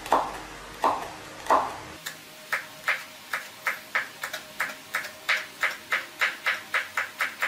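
Cleaver chopping a red horn chili into thin strips on a bamboo cutting board: three slower knocks of the blade on the board, then from about two seconds in a quick, even run of about three chops a second.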